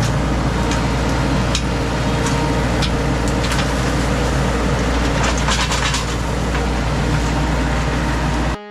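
Mini skid steer's engine running steadily with a low rumble, with scattered sharp clicks and knocks over it.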